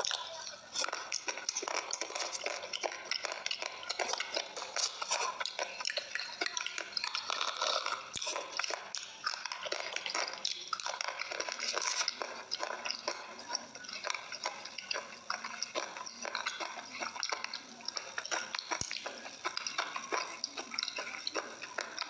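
Close-up wet chewing of a slate-pencil paste: a dense, continuous run of small sticky clicks and crackles.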